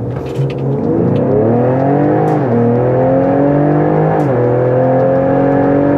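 Ford Explorer ST's 3.0-litre twin-turbo EcoBoost V6, fitted with an aFe cold air intake, accelerating at full throttle from a launch. Its pitch climbs, drops at an upshift about two and a half seconds in and again about four seconds in, then climbs once more.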